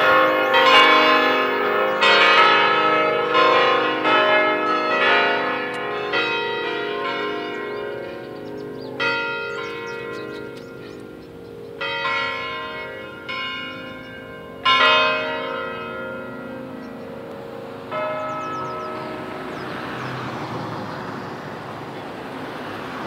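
Mission church bells ringing, struck one after another with long overlapping rings. The strikes come about once a second at first, then thin out to single strikes a few seconds apart, the last about three-quarters of the way through, after which the ringing dies away into steady background noise.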